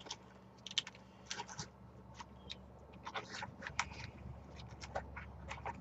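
Faint, irregular clicks and light scrapes of small hand tools and a plastic case being handled, over a faint low hum.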